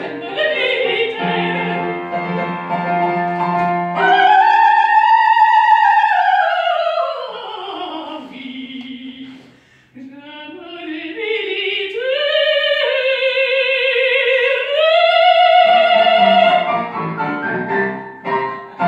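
Female opera singer singing live in the closing phrases of an aria with piano accompaniment. A long high note with vibrato swells and then slides down. A rising phrase follows, ending on a held note, and the piano carries on alone near the end.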